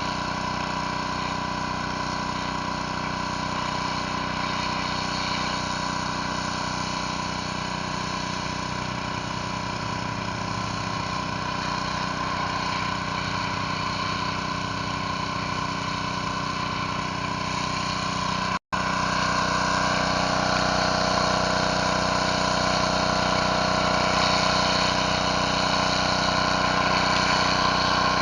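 Gas-engine pressure washer running steadily, its engine and pump feeding a surface cleaner spraying concrete. About two-thirds through, the sound cuts out for a split second and comes back slightly louder.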